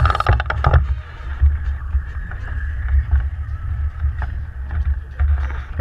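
Gusty low rumble of wind buffeting a fishing-rod-mounted camera's microphone at sea, over the steady noise of the charter boat. Brief indistinct voices come in near the start.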